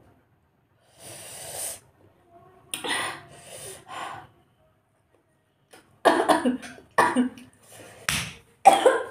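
A woman coughing while eating: a breathy exhale about a second in, a few short coughs around three to four seconds, then a run of loud, sharp coughs from about six seconds on.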